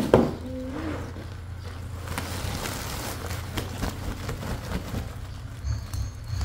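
A thump as a sack of fish is set down into a plastic basin. About two seconds in comes the rustle of the sack being lifted as the fish slide out into the basin, with a few small knocks, over a low steady hum.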